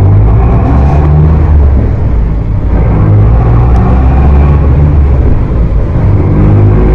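Mercedes-Benz OF 1418 bus diesel engine heard through its exhaust: a loud, steady low rumble whose pitch shifts up and down a few times as the engine is worked.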